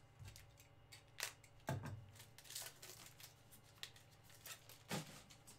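A foil trading-card pack being torn open and its cards handled: faint crinkling with a few sharp rustles.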